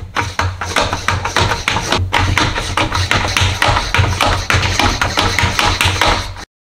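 Hand-pump garden pressure sprayer being pumped: its plastic plunger handle is worked up and down in a rapid run of clacking strokes, about four to five a second, cutting off suddenly near the end. The sprayer is busted and fails to pressurize.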